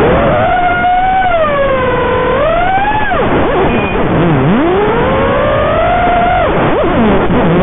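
FPV quadcopter's motors whining, the pitch swinging up and down with throttle and sagging deep and low twice, about four and seven and a half seconds in.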